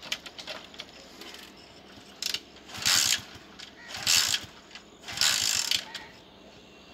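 Motorcycle being kick-started: a few light clicks, then three or four hard kicks on the kick-starter about a second apart, the engine turning over without catching. It will not start because the anti-theft tracker has cut it off until an SMS enables it.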